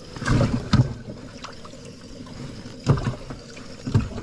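Knocks and thumps on a bass boat as caught fish are handled and sorted: a cluster about half a second in, then single knocks near three and four seconds, over a steady low hiss.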